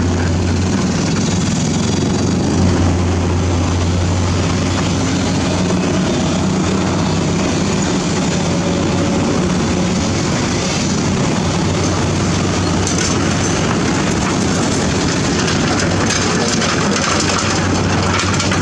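Komatsu PC200 hydraulic excavator's six-cylinder diesel running under load as it swings a bucket over a dump truck, mixed with the diesel of the dump truck close by: a steady, low engine drone.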